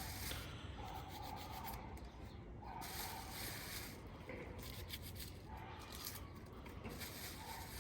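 Rubbing and scraping as spring onions are cut and pressed into potting soil in a pot, irregular and continuous. A short steady tone recurs a few times behind it.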